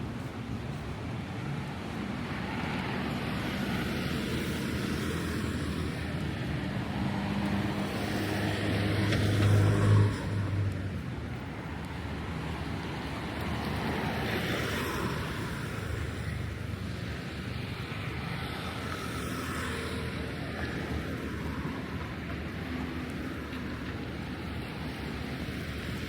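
Road traffic going past, a steady wash of engine and tyre noise. One vehicle passes close, getting louder to a peak about ten seconds in and then falling away.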